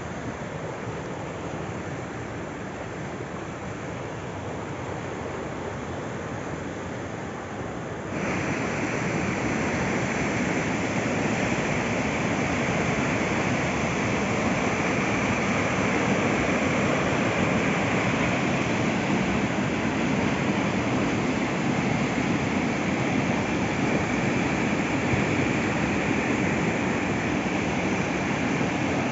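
Rushing water of a river in flood, a steady, even wash of sound. About eight seconds in it jumps suddenly louder and brighter and then holds steady.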